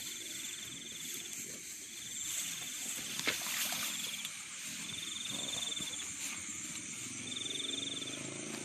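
Night chorus of rice-paddy insects and frogs, with one caller repeating a high, buzzing trill in bouts of about a second, roughly every two seconds. A single sharp click about three seconds in.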